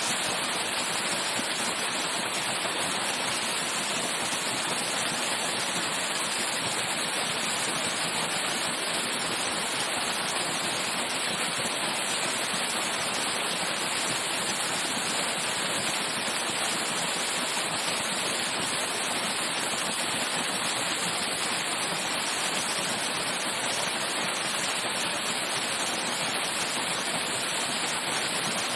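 Waterfall heard from its base: a steady, unbroken rush of falling water, bright and hissy with little low rumble.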